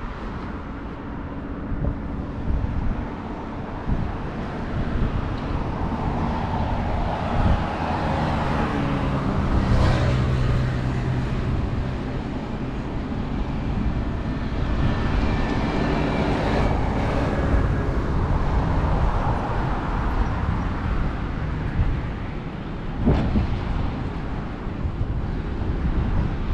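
Road traffic going past on a bridge, vehicles swelling and fading one after another, the loudest passing about ten seconds in, over wind buffeting the microphone.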